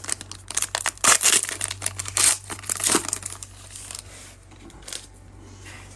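Foil wrapper of a Panini Prizm baseball card pack crinkling and tearing as it is ripped open by hand, a dense run of sharp crackles for about three seconds, then fainter rustling as the cards are slid out.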